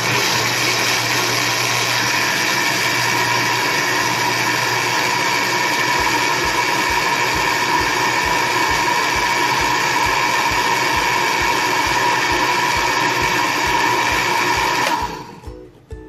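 Countertop electric blender running steadily, blending banana and milk into a shake. It is switched off about fifteen seconds in and winds down.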